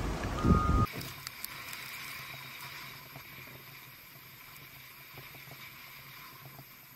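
A heavy wheel loader's engine running with its backup alarm beeping, cut off abruptly about a second in. It gives way to a faint, muffled steady hum and splashing of a vehicle driving through deep floodwater, slowly fading.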